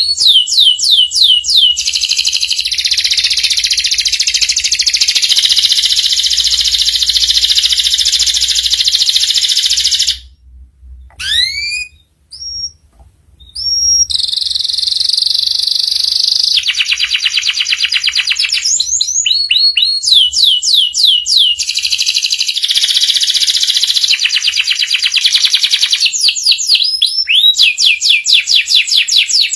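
Domestic canary singing: long, fast, rattling trills alternate with rising whistled notes. About ten seconds in the song almost stops for a few seconds, leaving only a few single upslurred notes, then the trills resume.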